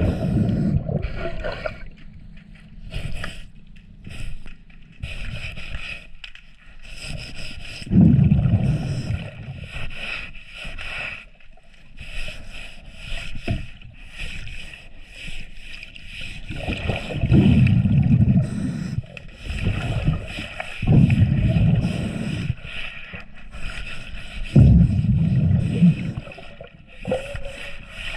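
A scuba diver's exhaled bubbles, heard underwater, gurgling out of the regulator in five loud bursts at uneven intervals. A fainter steady hiss runs between the bursts.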